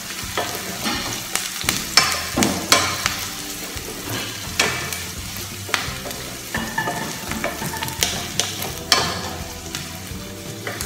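Onions sizzling in butter in a stainless steel frying pan, stirred with a wooden spatula that scrapes and knocks against the pan again and again.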